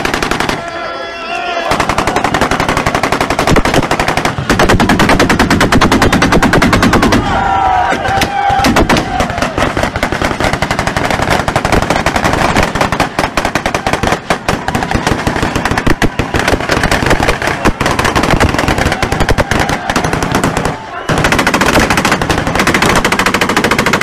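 Automatic gunfire in long, rapid, near-continuous bursts, with a brief lull near the end.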